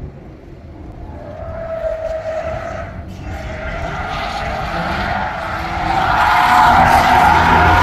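Sports cars lapping a race track and coming through a corner, engine and tyre noise building steadily and loudest over the last two seconds.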